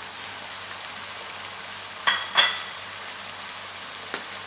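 Chopped vegetables sizzling steadily in hot oil in a frying pan, with shredded cabbage just added on top. About two seconds in come two quick ringing clinks, and a single sharp tick near the end.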